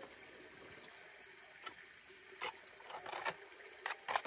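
Scattered light knocks and scrapes, about half a dozen spread over the second half, as a Minelab GPX 5000 metal detector's search coil and a digging tool are handled against bedrock.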